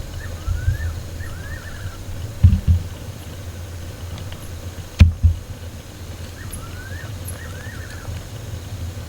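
A bird calls twice, about six seconds apart: each call is a rising note followed by a quick run of notes. Under it runs a steady low hum, and a few dull thumps come a little after two seconds in and again at about five seconds.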